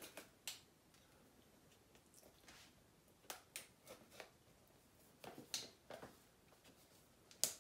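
Faint, scattered clicks and scratches of scissors picking and cutting at the seal on a cardboard perfume box, with a sharper click near the end.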